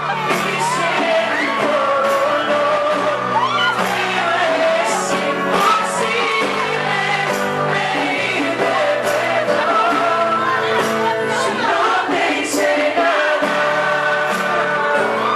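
Live band playing with several voices singing together, and drums and cymbals striking about once a second.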